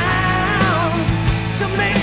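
Rock song playing, a singing voice over drums and guitar.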